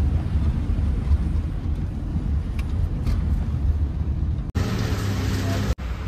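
Steady low rumble of road and engine noise inside a moving car's cabin. About four and a half seconds in, the sound cuts abruptly to a harsher, hissier noise, and it cuts again just before the end.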